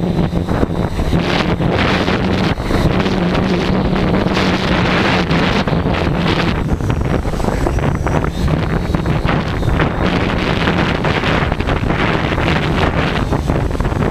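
Strong wind buffeting the microphone in heavy gusts, over a steady low hum from the Tarot 680 hexacopter's motors and propellers.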